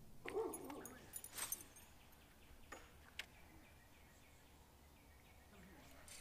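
Quiet outdoor ambience with faint bird chirps and a few soft clicks, the sharpest about three seconds in.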